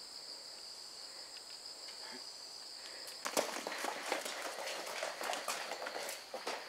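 Steady high-pitched insect buzz with a few faint steps; about three seconds in the buzz stops and quick, hurried footsteps on a hard floor take over.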